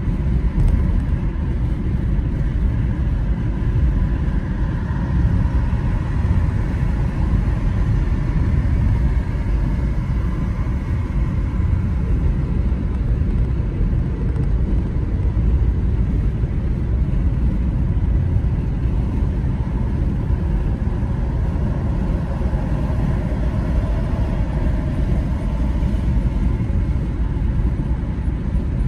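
Steady low road and engine rumble of a car driving along at speed, with tyre noise and no breaks.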